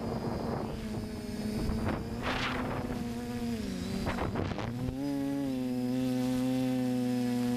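FPV quadcopter's electric motors and propellers buzzing as it flies. The whine holds one pitch, dips and climbs back with the throttle about halfway through, then settles steady. There are brief gusts of wind noise on the onboard microphone.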